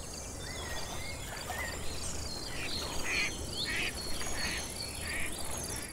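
Outdoor wildlife soundscape: birds chirping and calling over a steady insect trill, with a row of noisy calls repeating about every two-thirds of a second in the second half.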